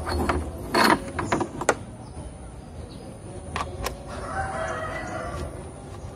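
Clicks and plastic clatter of ignition coils and their bolts being handled on a BMW M52 engine that is switched off, loudest about a second in. About four seconds in, an animal call with several overtones lasts about a second and a half.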